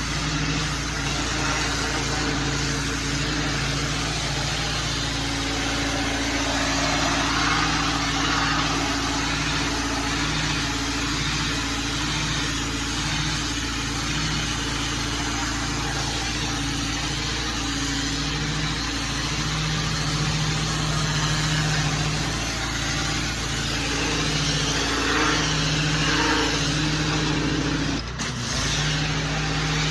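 Small petrol engine of outdoor cleaning equipment running steadily under a loud, broad rushing hiss of air or water, with a brief break about a second before the end.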